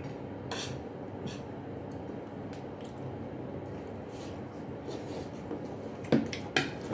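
Eating at the table: faint clicks of spoons and forks and soft chewing over a steady low room hum, then three sharper knocks of utensils against dishes near the end.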